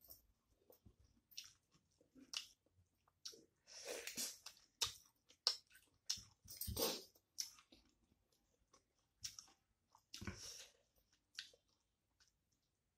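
A person chewing a mouthful of rice and chicken curry close to the microphone, in irregular bursts of chewing and mouth clicks with short pauses between.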